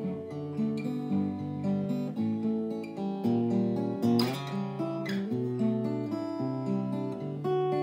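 Background music: acoustic guitar playing, several notes at a time, in a steady rhythm.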